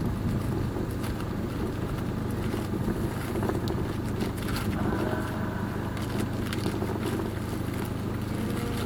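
Small fishing boat's motor running steadily, a continuous low hum.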